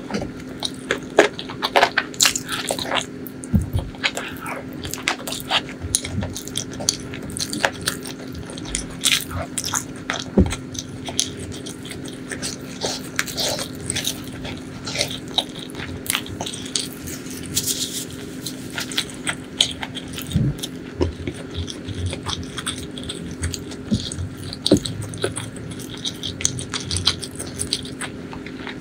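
Close-miked chewing of a mouthful of butter chicken, with many small wet mouth clicks and smacks at an irregular pace.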